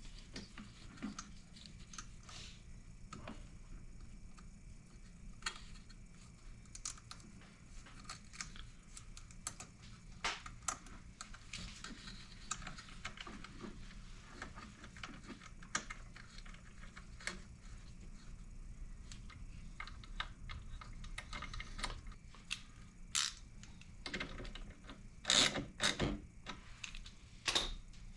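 Scattered light clicks and taps of hand tools and small metal parts as snowmobile battery terminal clamps are fastened, with a louder clatter of several knocks near the end.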